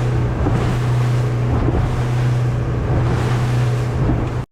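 An engine running steadily with a low hum, under wind buffeting the microphone; everything cuts off abruptly near the end.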